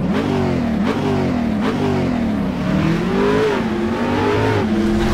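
Car engine accelerating hard, its pitch climbing and dropping back several times as it shifts up through the gears.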